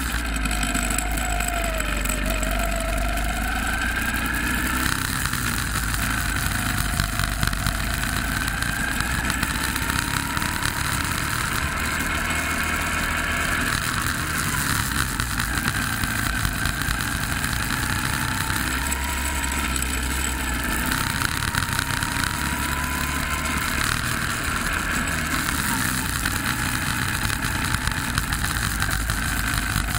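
Go-kart engine heard from on board, its pitch rising and falling again and again as the kart speeds up and slows through the laps, over a low rumble.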